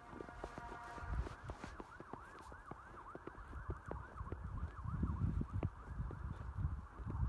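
Emergency vehicle siren in a fast yelp, its pitch sweeping up and down several times a second, with wind rumbling on the microphone.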